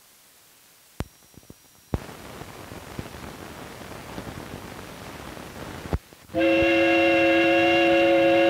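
Old film soundtrack: a click and a brief high tone about a second in, then hiss and crackle, then a pop. About six seconds in, a loud, steady multi-note horn chord begins and holds.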